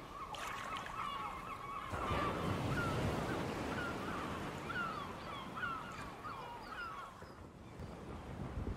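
Seabirds calling over a low rush of wind and surf. A steady high note is held for the first two seconds and cuts off abruptly, then comes a quick run of short cries, each sliding in pitch, which fades near the end.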